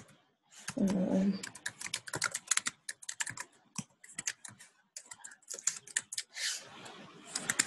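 Typing on a computer keyboard: quick runs of keystrokes with short pauses between them. A brief low vocal sound comes about a second in.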